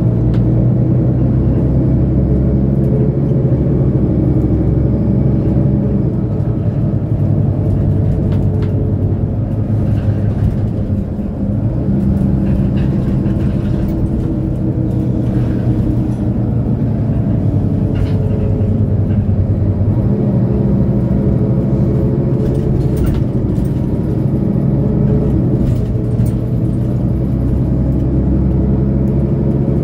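Diesel engine of a 2008 Mercedes-Benz O530 Citaro Ü bus running steadily at idle with the bus standing still; its note dips and shifts about eleven seconds in and again around twenty seconds.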